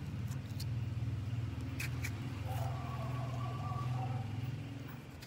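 An engine running steadily with a low hum, with a few faint clicks over it.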